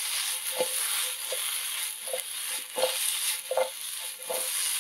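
Potato pieces and spices sizzling in hot oil in a nonstick frying pan as they are tossed and stirred, with a short stirring stroke about every three-quarters of a second over the steady sizzle.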